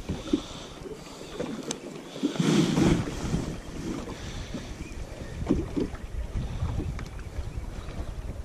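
Wind buffeting the microphone, with a stronger gust about two and a half seconds in and a few faint clicks.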